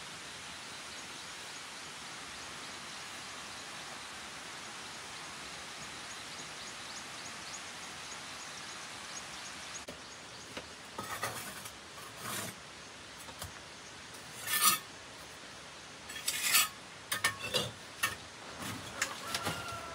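A steady hiss, then from about halfway a run of irregular sharp clinks and knocks of hard objects, the loudest two a couple of seconds apart.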